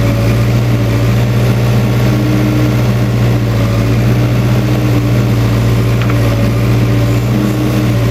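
Case 580K backhoe's four-cylinder diesel engine running loud and steady at a constant speed.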